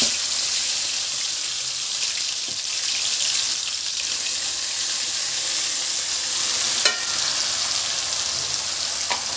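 Wet masala paste sizzling hard in hot mustard oil in a kadhai, a loud, steady hiss as it is stirred with a wooden spatula. A short knock sounds about seven seconds in.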